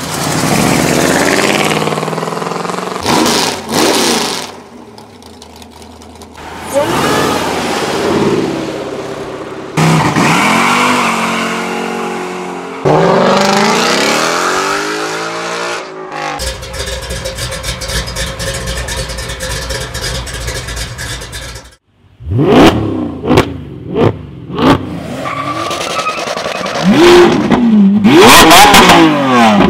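A run of American muscle cars driving off and accelerating hard, one clip cut to the next, among them a late-1970s Pontiac Firebird Trans Am's V8 and a modern Ford Mustang, with engine pitch rising as they pull away. Near the end come several short, sharp throttle blips and then a loud rev.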